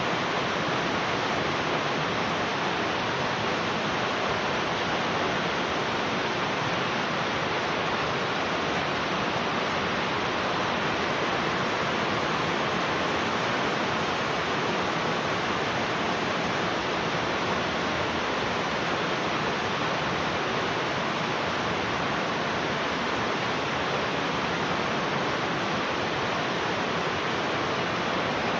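Heavy rain falling: a steady, dense hiss with no single drops or thunder standing out.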